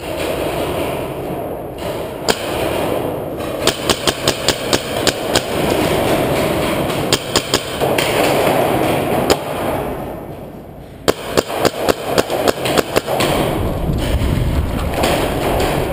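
Paintball marker firing in three rapid strings of shots, about six a second, over steady background noise.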